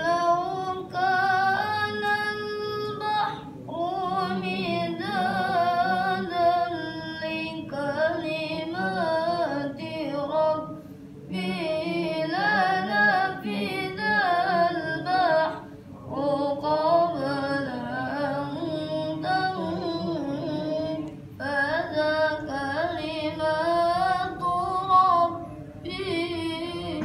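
A child qari reciting the Quran in the melodic tilawah style: one high voice held in long, ornamented phrases, with short breath pauses between them.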